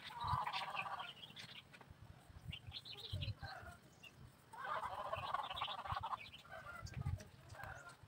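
Domestic fowl calling in the background: a burst of calls right at the start, a longer one around the middle, and shorter calls between.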